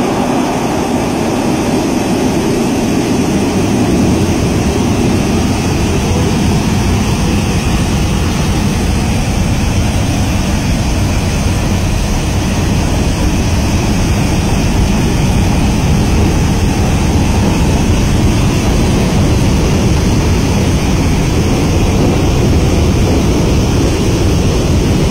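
Water blasting from a dam's outlet valves in wide cone-shaped jets of spray: a loud, steady rush with a deep rumble underneath.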